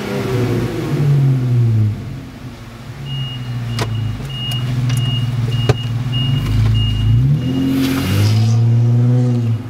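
Jeep Wrangler JK's V6 engine and exhaust being revved while stationary. Engine speed is held high, falls back about two seconds in and runs steadily, then is revved up again near the end and held before dropping off.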